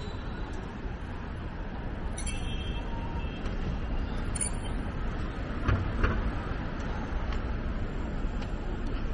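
City street traffic: a steady low rumble of passing vehicles, with two brief high-pitched chirps and a pair of short knocks about six seconds in.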